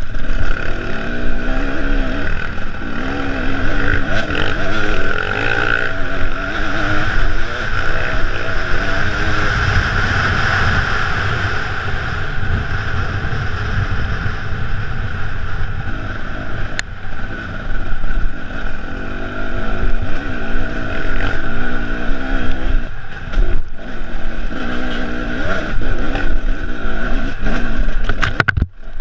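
Enduro motorcycle engine running close up, its revs rising and falling continuously on a rough dirt trail, with a few brief drops as the throttle is rolled off.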